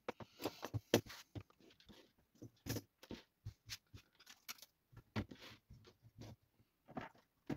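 Small parts being handled on a workbench: irregular clicks and knocks as wires, a glue tube and a circuit board are picked up and set down on the tabletop, with short bits of rustling.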